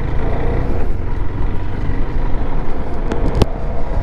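KTM 390 Adventure's single-cylinder engine running steadily as the motorcycle rides along, with a sharp click a little over three seconds in.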